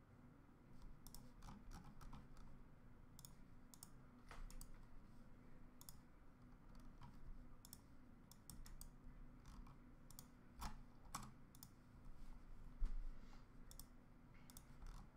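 Faint, irregular clicks of a computer keyboard and mouse being used, over a low steady hum, with one louder knock about 13 seconds in.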